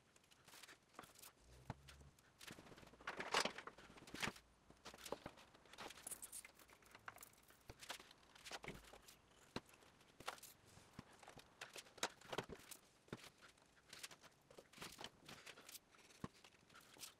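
Faint, scattered taps and light scrapes of thin plywood strips being set down and pressed onto a glued plywood backer board on a wooden workbench. A couple of slightly louder scrapes come a few seconds in.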